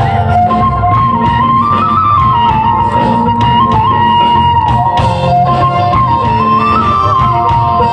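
Live band playing a Bihu song's instrumental passage: a transverse flute carries the melody over a bass and percussion backing with a steady beat.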